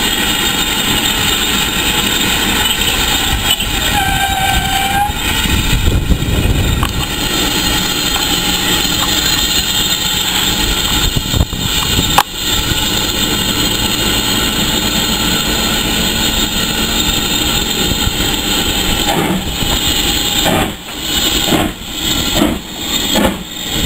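BR Standard Class 4MT steam locomotive 76084 moving past with its train: a loud, steady rush of steam and running noise, with a brief whistle about four seconds in. Near the end the sound turns into a pulsing beat, a little under a second apart.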